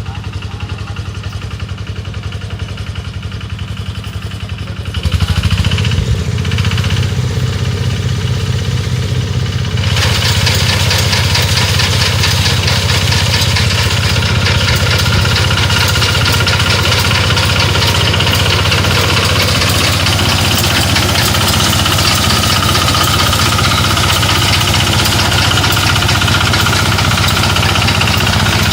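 Small engine of a rice-reaping machine running with a steady beat. It speeds up and gets louder about five seconds in. From about ten seconds in it runs harder, with a noisier, fuller sound.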